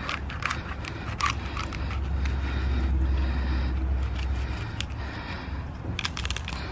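Kitchen knife cutting through the base of a celery bunch: a series of crisp crunches and snaps, scattered through, with a cluster near the end. A low rumble underneath grows louder in the middle.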